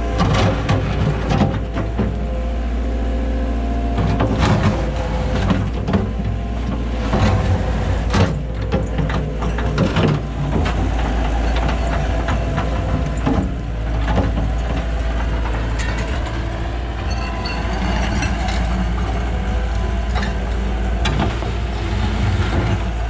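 Komatsu excavator's diesel engine running steadily, with repeated knocks and scrapes as its bucket breaks out old concrete and the asphalt layer over it.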